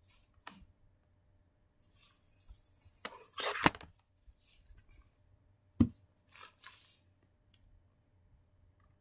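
Handling noise from plush toys and a tablet being moved about: scattered rustles and scrapes, the loudest about three and a half seconds in, and a sharp knock near six seconds.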